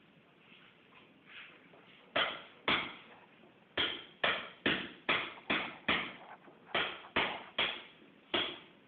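A hammer striking about twelve times, starting about two seconds in: sharp knocks, mostly two or so a second with a couple of short pauses, each ringing briefly.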